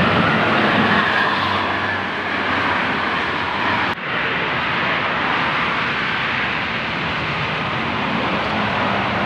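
Highway traffic noise: a coach bus passing close at speed, its engine and tyre noise strongest early, then a sudden break about four seconds in followed by steady road noise as another coach approaches from a distance.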